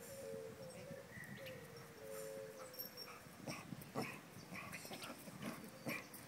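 Golden retriever puppy whimpering softly in a few drawn-out whines during the first half, followed by footsteps on the concrete path, spaced about half a second apart and growing louder as they approach.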